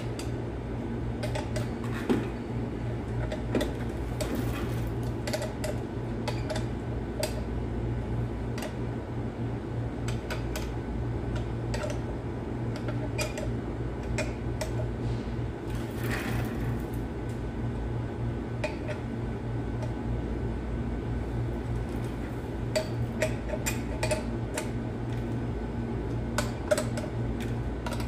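Scattered light metallic clicks and clinks of a hand tool and small parts being worked at the timing gear train of a Caterpillar 3176 diesel engine, over a steady low hum.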